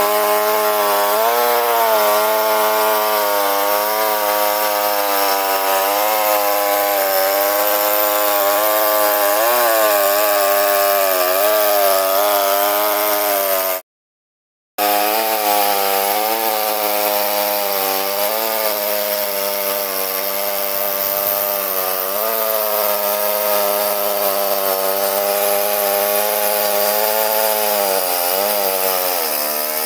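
Two-stroke chainsaw running at high revs while ripping a log lengthwise into slabs, its pitch dipping and recovering as it works through the cut. The sound breaks off for about a second midway, then carries on.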